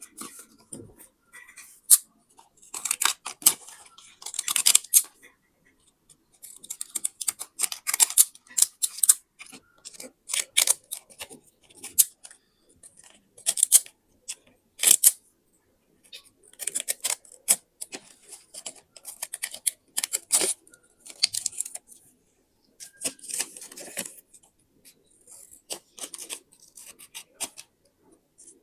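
Scissors cutting paper in short runs of crisp snips, with paper rustling, broken by brief pauses every few seconds.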